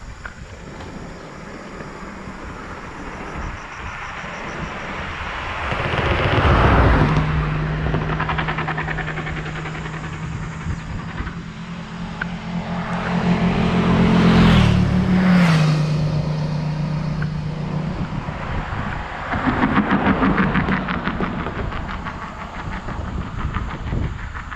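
Motor vehicles passing on a road, one after another: three swells that build and fade. One of them carries a steady engine drone for several seconds that shifts in pitch as it goes by.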